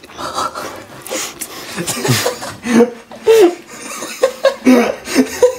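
Young men laughing in short broken bursts, with breathing, while starting to eat pizza quickly.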